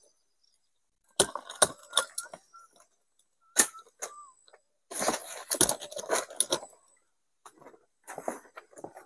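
Stiff green palm leaves being handled and torn: irregular clusters of crackling rustles with a few sharp knocks, separated by short pauses.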